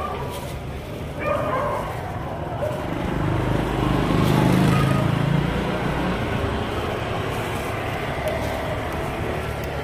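Steady wind and road noise from a bicycle rolling along, with a motorcycle engine passing, loudest about four to five seconds in.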